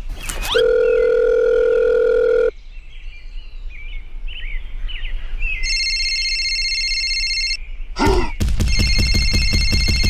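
Telephone sound effects. A steady dial tone holds for about two seconds, then a phone starts ringing: first a high steady electronic ring, then a fast trilling ring near the end.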